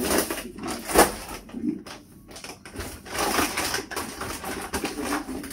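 Groceries being handled and unpacked: plastic bags and packaging rustling and crinkling, with a sharp knock of something set down about a second in.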